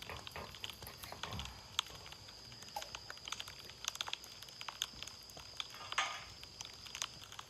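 Campfire crackling faintly with scattered sharp clicks and pops, over a steady high-pitched whine in the background; a brief louder rustle about six seconds in.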